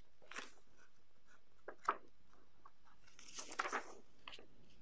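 Handling of a paperback picture book: a few faint soft clicks and one sharper tap, then a brief paper rustle about three and a half seconds in as a page is turned.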